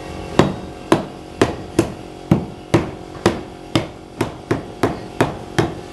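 A hammer driving nails with about thirteen sharp, ringing blows at roughly two a second, coming a little faster near the end.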